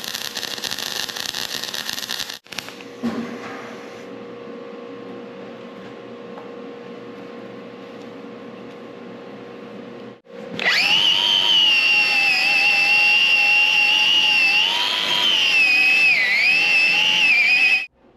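Wire-feed (MIG) welding with dual-shield flux-core wire crackles for about two seconds, then cuts off. After a quieter stretch with a steady hum, a loud power-tool whine starts about ten seconds in, its pitch dipping as the tool is loaded, and it stops abruptly near the end.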